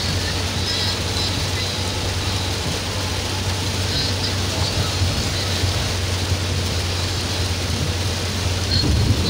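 Heavy rain beating on a car's roof and windscreen, heard from inside the cabin over the steady low drone of the engine and tyres on a wet road.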